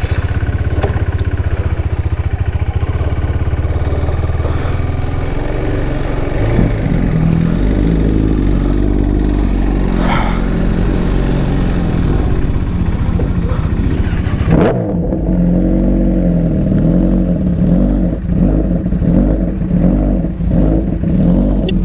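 KTM RC 390 single-cylinder motorcycle engine running as the bike moves off and rides at low speed, its note rising and falling with the throttle. There is a sharp knock about two thirds of the way through.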